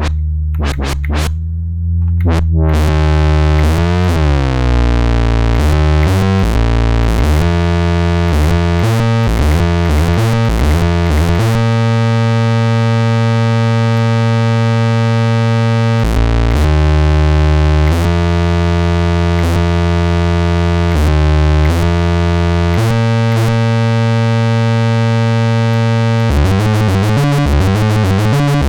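Behringer Crave monophonic analog synthesizer playing a low, buzzy bass line: the filter opens over the first few seconds so the tone brightens, then the notes step between pitches, some held for several seconds. Near the end it breaks into a quick sequenced note pattern.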